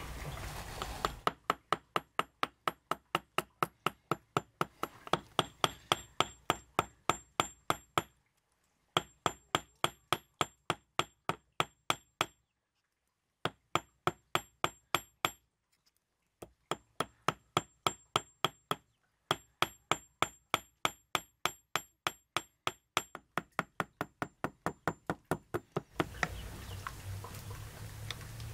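Hammer striking copper wire on a round steel block: a steady run of sharp, ringing metal taps, about three a second, stopping briefly four times.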